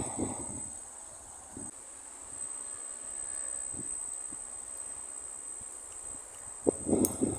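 Insects chirring in one steady high-pitched tone, with faint handling noises low down and a few sharp knocks near the end.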